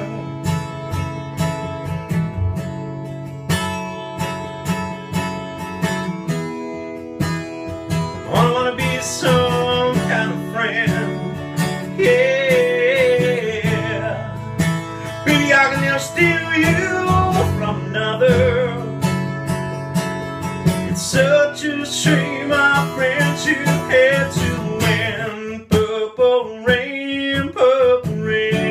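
Acoustic guitar strummed in a steady rhythm, with a man singing along in long, wavering held notes from about eight seconds in.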